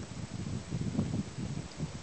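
Wind buffeting the microphone: irregular low rumbling and puffs.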